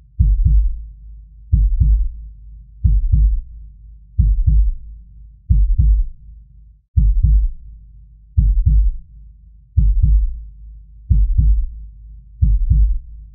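Heartbeat sound effect: slow, deep double thumps (lub-dub), about ten pairs evenly spaced roughly every second and a half, over a low steady drone.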